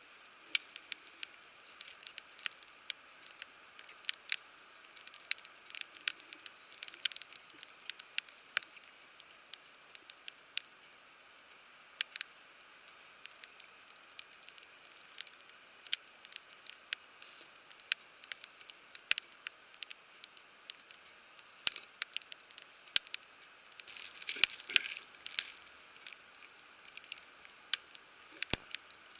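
Wood fire crackling and popping in a fire pit: irregular sharp snaps over a faint steady hiss, with a denser cluster of pops a little before the end.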